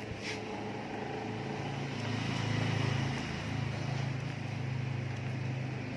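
A motor vehicle engine's low hum, swelling to its loudest about halfway through and then easing off, like a vehicle passing by.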